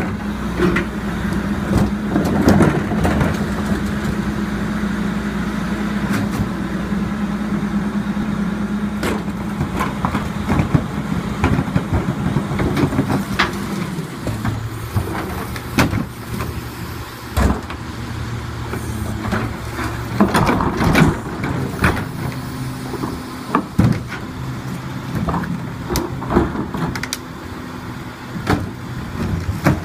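Diesel rear-loader garbage truck (Crane Carrier LET2 with Leach body) running behind its cart tippers, its steady hum dropping to a lower pitch about halfway through. Plastic wheeled carts clank and bang repeatedly as they are lifted, tipped into the hopper and set down.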